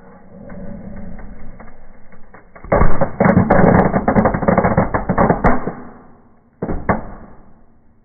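Indoor fireplace fireworks going off: light fizzing and crackling at first, then a dense run of loud crackling pops lasting about three seconds, and a short final burst of crackles near the end.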